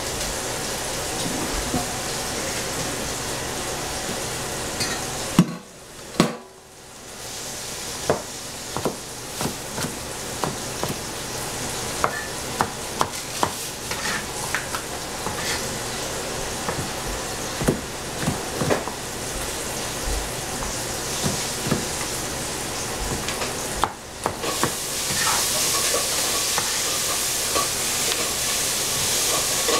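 Food sizzling in hot cooking oil in a pan, with a utensil stirring and knocking against the pan many times. The sizzle drops out briefly twice and is louder near the end.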